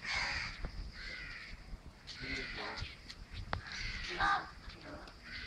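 A few short, harsh animal calls, a second or two apart, with a couple of sharp clicks between them.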